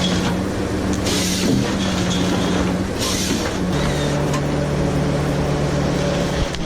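Heavy diesel engine running steadily, its revs dropping a little past halfway, with two short bursts of hissing air about a second and three seconds in.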